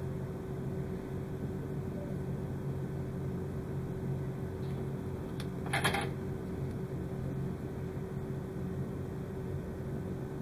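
Steady low hum, with a brief rustle about six seconds in as small wired parts are handled.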